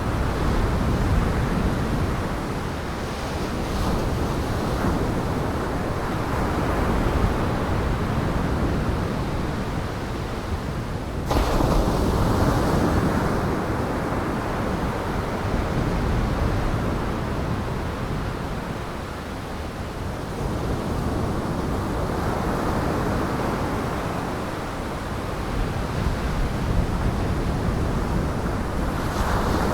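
Storm wind buffeting the microphone over breaking lake surf, a loud, rumbling rush that swells and eases every few seconds. The sound changes abruptly about eleven seconds in.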